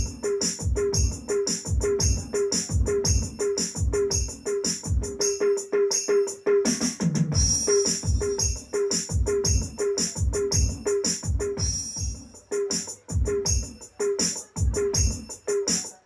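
Roland SPD-30 Octapad electronic percussion playing a fast, steady rhythm of low drum hits, each beat with a short pitched note and a sharp high click. The pattern breaks briefly about seven seconds in with a low falling drum sound, then picks up again.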